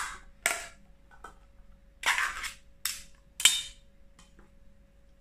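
Ring-pull lid of a tin of sweet corn being opened by hand: a sharp crack as the tab breaks the seal, then metallic clicks and a longer tearing rasp about two seconds in as the lid is peeled back, with two more sharp clicks near the end.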